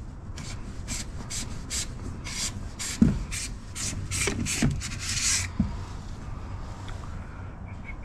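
Hand-lever grease gun being pumped: a rasping stroke about three times a second that stops after about five seconds, with a knock about three seconds in. The gun's grease cartridge is almost empty.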